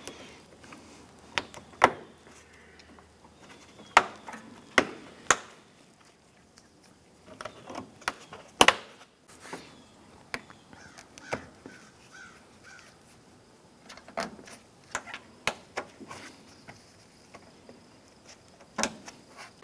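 Plastic push-pin retainers being pressed and snapped into a car's plastic radiator cover: a dozen or so sharp clicks at irregular intervals, with plastic scraping and rubbing in between.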